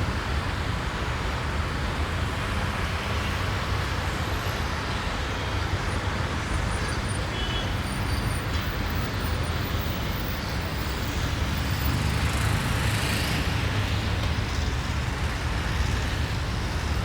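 City road traffic: a steady mix of passing cars with a deep engine rumble and tyre noise, and a few faint short high squeals partway through.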